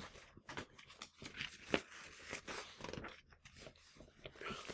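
Picture-book pages being handled and turned: faint, irregular paper rustles and crinkles, with a sharper crackle a little under two seconds in.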